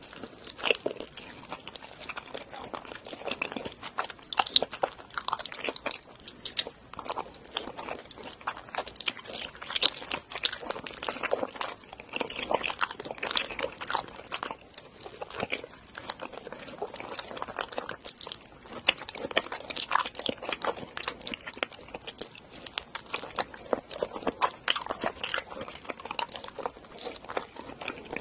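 Close-miked chewing of raw salmon sashimi: constant irregular mouth clicks and smacks as the soft fish is bitten and chewed.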